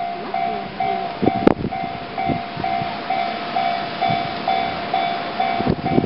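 Japanese railway level-crossing warning bell ringing, an electronic clang repeating about twice a second while the barriers are down, signalling an approaching train. A sharp click about one and a half seconds in.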